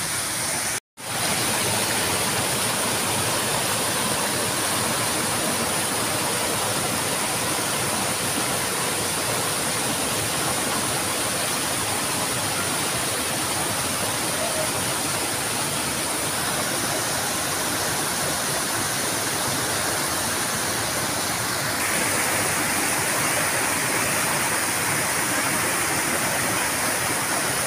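Stream water rushing steadily over small rock cascades, broken by a split-second dropout about a second in.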